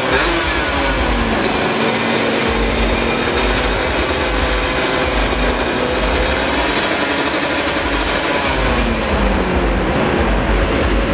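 Small motorcycle engine running at wavering revs with a rapid, rattling beat.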